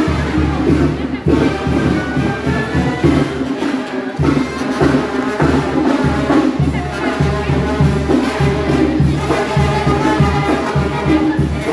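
Brass band with trumpets and a sousaphone playing dance music, with a steady pulsing beat in the bass, over crowd chatter.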